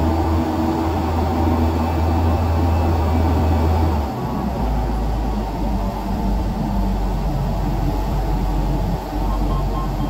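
Crane engine running, heard from inside the operator's cab: a steady low hum that drops to a lower engine speed about four seconds in and holds there.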